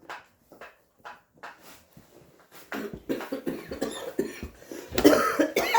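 Chickens clucking in short soft notes, then a loud cough near the end.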